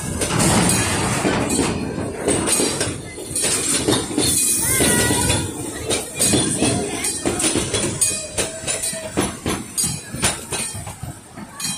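Narrow-gauge Puffing Billy passenger carriages rolling past close by, a steady rumble with many sharp wheel clicks over the rail joints and a few brief high tones.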